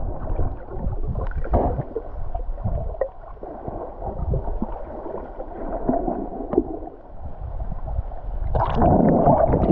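Seawater sloshing and gurgling around a camera in the sea, muffled and uneven, with a louder rush of water near the end.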